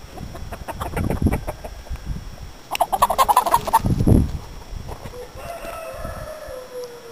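Chickens calling: a quick run of clucks about three seconds in, then one long call that falls slightly in pitch near the end. Footsteps crunch on gravel in the first couple of seconds.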